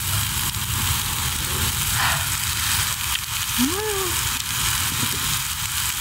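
Meat sizzling on a grill pan atop a small wood-burning camp stove, a steady hiss. There is a short hummed "mm" from the eater a little past the middle.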